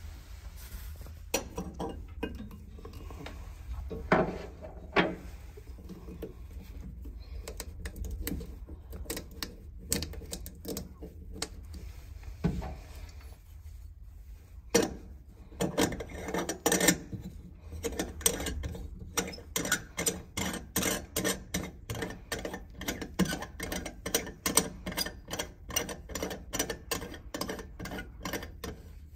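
Metal fittings of a pop-up waste coupling being handled under a washbasin: scattered clinks and knocks, then a long run of quick clicks, two or three a second, in the second half as the brass backnut is spun by hand up the threaded waste body.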